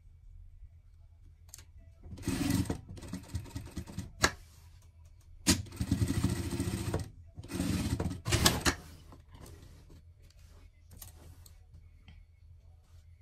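Industrial straight-stitch sewing machine stitching fabric in three short runs, starting about two, five and a half, and eight seconds in, with a few sharp clicks among them.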